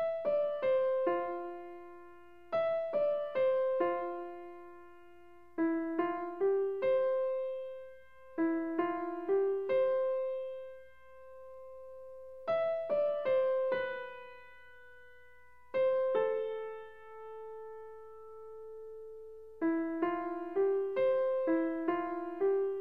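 Background music: a gentle piano melody played in short phrases of a few notes, each note fading away, with pauses and held notes between phrases.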